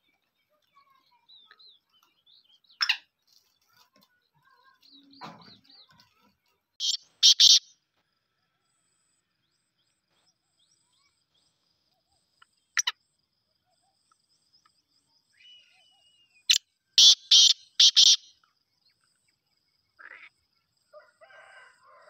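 Black francolin calling: loud, clipped notes in short groups, a three-note group about seven seconds in and a four-note group about seventeen seconds in, each led by a single sharp note a few seconds earlier. Faint small-bird chirps lie between the calls.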